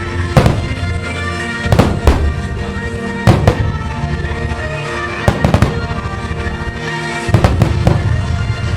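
Aerial firework shells bursting with sharp bangs, singly and in quick pairs and clusters every second or two, the densest run near the end. Music plays under them throughout.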